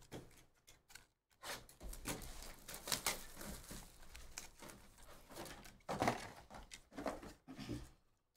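Hands handling shrink-wrapped trading card boxes: irregular crinkling and rustling of plastic wrap and cardboard, with small clicks and taps as the boxes are turned and set down.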